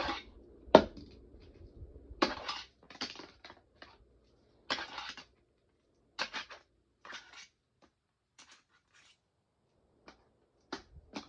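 Fingerboard with bearing wheels being ridden and flipped on plastic ramps: irregular sharp clacks of the board hitting and landing, the loudest about a second in, mixed with short scraping rolls of the wheels and trucks.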